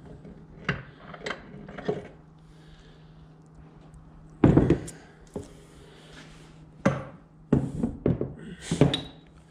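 Steel transmission parts knocking and clattering against each other and against the cast-iron case as they are worked loose and lifted out of a Ford 5000 tractor's transmission. There are a few light knocks at first, the loudest clatter about four and a half seconds in, and more knocks near the end.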